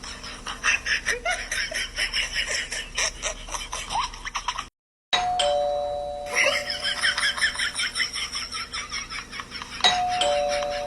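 Two-tone ding-dong doorbell chime, a higher note followed by a lower held note. It rings about five seconds in and again near the end, and its two notes sound faintly in the first half. A busy rapid clicking runs underneath.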